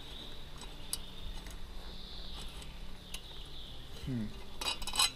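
Small metal tools and hardware clicking and tapping as an Allen wrench works a screw that will not catch its thread, with a quick run of clicks near the end. A faint steady high whine sits underneath.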